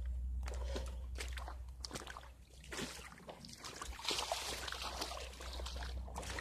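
Footsteps wading and splashing through shallow creek water, irregular sloshes and knocks that grow busier about two-thirds of the way in, over a steady low rumble on the microphone.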